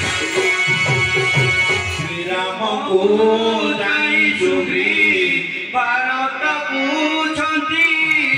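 Live jatra stage music: hand-drum strokes over held keyboard notes for about two seconds, then the drum drops out and a man sings a long, wavering melodic line over the keyboard.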